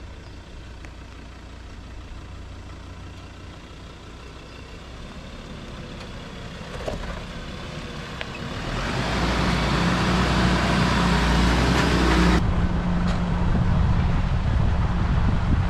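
Ford Ranger 4WD driving up on a dirt track, its engine and a hiss of noise growing louder about eight seconds in as it comes close. The hiss cuts off suddenly just after twelve seconds, leaving a steady engine note.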